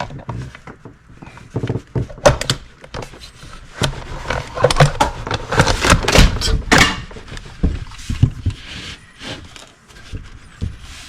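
Irregular clicks, knocks and scraping as the bar nut on an Echo CS271T chainsaw is tightened down and the saw is handled, busiest in the middle.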